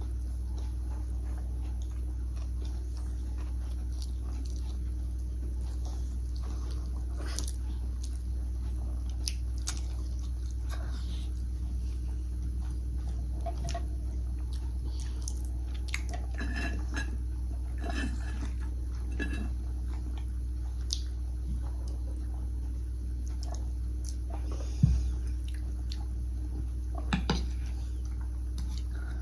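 Eating sounds at a table: forks and spoons clicking on plates and chewing, with one sharper knock near the end. A steady low hum runs underneath.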